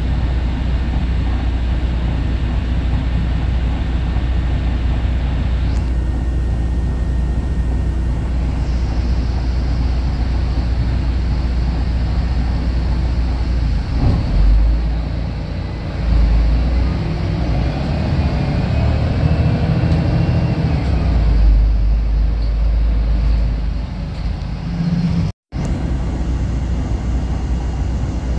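Volvo B12BLEA articulated bus's diesel engine heard from inside the passenger cabin, running with a steady low rumble while the bus stands in traffic. About 16 s in the engine note rises in pitch as the bus pulls away and accelerates. Shortly after 25 s the sound cuts out for a moment.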